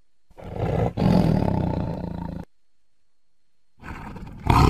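A big cat roaring: two roars in quick succession lasting about two seconds together, a pause of over a second, then another roar starting near the end.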